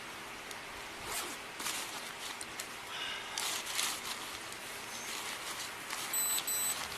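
Backpack being handled and zipped while gear is packed into it: irregular rasping zip and rustle strokes. Two short high beeps near the end.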